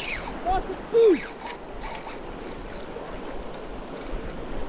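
Spinning reel being cranked as a jig is worked, its gears ticking under a steady noise of wind and water. About a second in, a short, loud sound falls in pitch, like a brief vocal cry.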